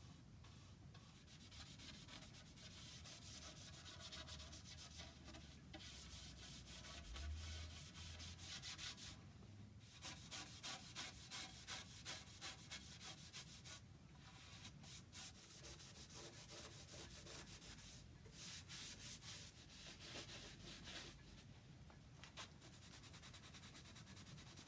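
Faint strokes of a brush rubbing over oak as a finish is brushed on, in runs of about two strokes a second.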